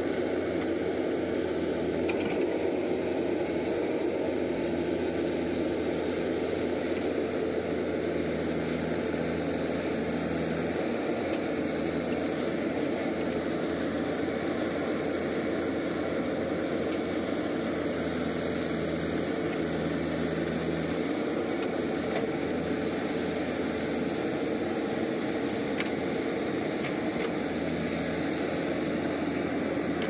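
JCB 3DX Super backhoe loader's diesel engine running steadily while the backhoe arm works the soil. Its note strengthens and eases a few times as the hydraulics take load.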